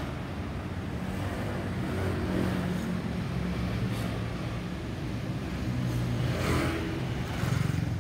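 Steady low drone of a C-130 Hercules's four turboprop engines as the aircraft climbs away, with street traffic underneath. A vehicle swells past about six and a half seconds in.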